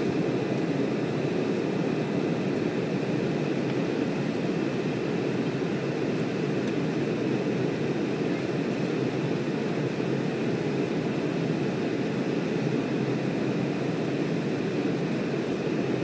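Steady cabin noise of a jet airliner in flight: the engines and the air rushing past the fuselage, heard from inside the cabin as an even, deep noise that does not change.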